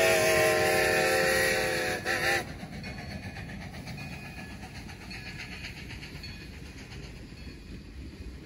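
Steam locomotive whistle on 2-10-0 No. 90: the end of a long blast that cuts off about two seconds in, then one quick short toot. After that, only the train's faint running rumble.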